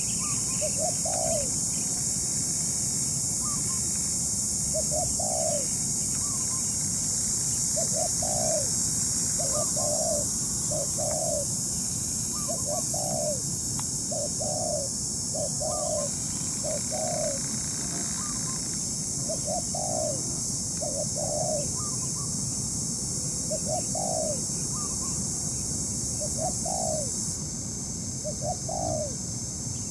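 Spotted doves cooing: a run of short, arched coo notes, often in pairs, repeating with brief pauses.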